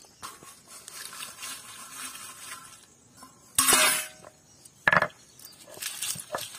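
Light clinking of a steel bowl and rustle of dry spice seeds, then two loud knocks and clatters on a stone grinding slab. Near the end, dried red chillies crackle as a stone roller starts crushing them on the slab.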